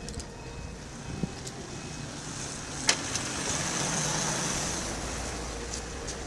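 A road vehicle passing by in outdoor traffic noise, growing louder to a peak about four seconds in and then fading, with a couple of sharp clicks before it.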